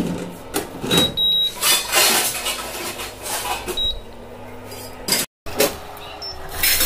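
Pigeon induction cooktop's touch panel giving short high beeps as its buttons are pressed, about a second in and again near four seconds. Between them come clicks and knocks from handling in the kitchen.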